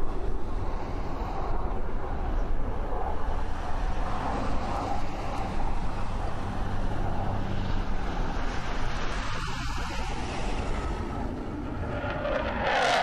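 Jet noise from a U.S. Navy F/A-18 Hornet's twin turbofan engines: a steady rushing roar that grows louder in the last second as the jet comes overhead.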